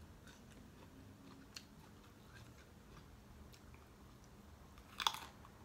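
A person eating with the fingers and chewing food: faint chewing with a few small clicks, and one louder sharp sound about five seconds in.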